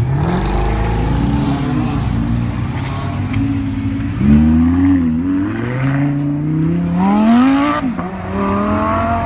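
Car engine accelerating hard, its pitch climbing and then dropping sharply at a gear change near the end.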